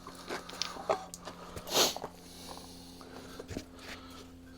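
Scattered light clicks and knocks of parts and tools being handled on the bench, with a short breathy rush about two seconds in, over a steady low hum.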